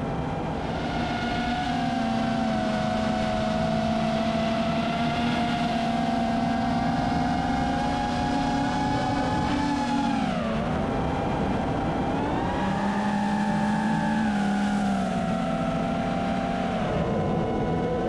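FPV drone's brushless motors whining in flight: a steady, high, many-toned whine whose pitch dips and recovers as the throttle is eased off and opened again, about ten seconds in and again near the end.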